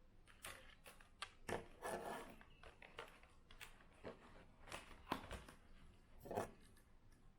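Hands unboxing and handling a 1:24 die-cast model car: faint rustling of packaging with scattered small clicks and knocks.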